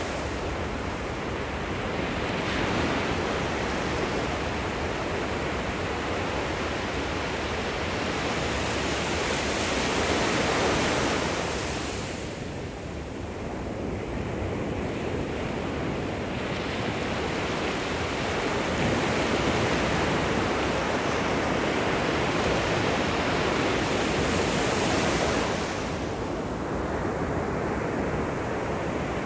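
Gentle surf breaking and washing up the shore, a steady hiss of water that swells and eases in slow surges, with lulls about halfway through and near the end.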